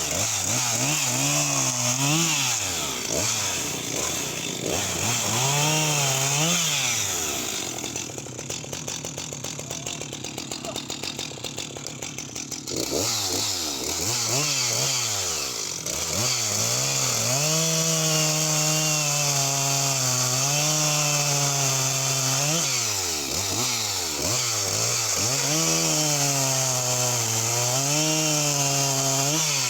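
Jonsered 2054 Turbo two-stroke chainsaw at full throttle cutting through knotty wood, its engine pitch sagging under load and picking back up. About eight seconds in it drops back to a lower, quieter idle for several seconds before opening up again.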